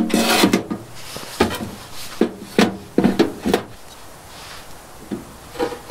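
Dry wood being broken by hand into kindling: a short crackling burst at the start, then a string of separate sharp snaps.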